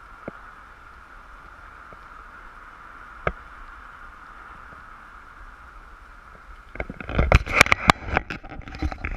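A steady faint background hum with a couple of small clicks, then, from about seven seconds in, loud irregular rustling and scraping as the camera is handled and rubbed against a jacket.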